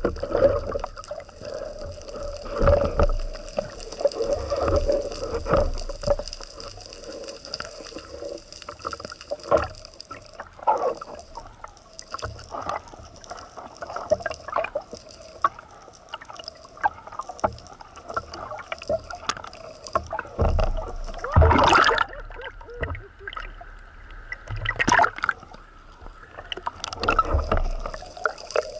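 Water sloshing and gurgling over a steady hum, with irregular louder rushes of water, the strongest about two-thirds of the way through.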